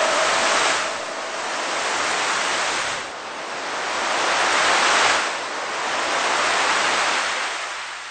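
Waves washing onto a shore, a rushing hiss that swells and fades about four times, each surge roughly two seconds long.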